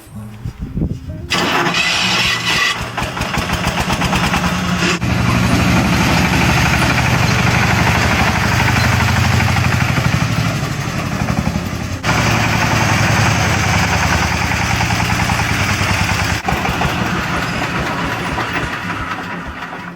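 A small vehicle engine, like a motorcycle's, running steadily with a fast even firing beat. It cuts off abruptly a few times and comes straight back.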